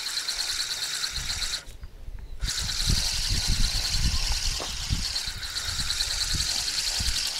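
Insects chirring in a steady, high, fast-pulsing tone that breaks off briefly about two seconds in, with irregular low knocks and rumbles underneath.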